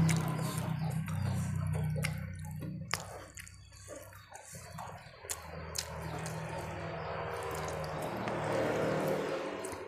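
Close-up eating sounds: wet mouth clicks and lip smacks while chewing rice eaten by hand, over a steady low hum.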